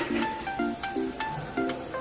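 Background music with a steady beat: short chords repeating about twice a second under a light plucked melody.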